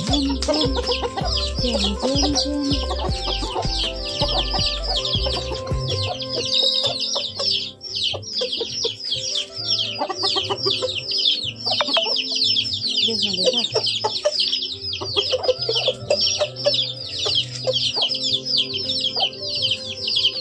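Roosters clucking as they feed on scattered onion peels, against a fast, high chirping that runs throughout, with background music.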